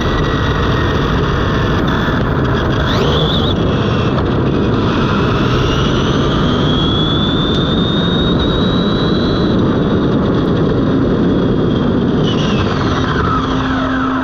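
Onboard sound of an Arrma Limitless RC speed-run car at high speed: a steady rush of wind and tyre noise over the asphalt, with the electric motor's high whine climbing slowly in pitch in the middle. Near the end the whine drops away sharply as the car slows.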